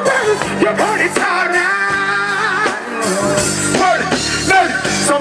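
Live reggae music over a loud PA: the band plays while a male singer sings into a handheld microphone, holding one wavering note about two seconds in.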